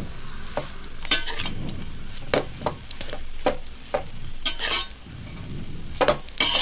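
Steel ladle scraping and clinking against a metal pot as noodles are stirred and tossed into the fried masala mix, in uneven strokes about once a second. A light sizzle runs underneath.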